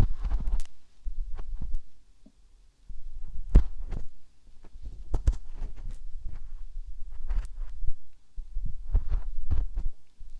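Close-up scratching, rubbing and tapping at a microphone's ear, with low thuds and rumbles from the handling: irregular, with a short lull about two seconds in.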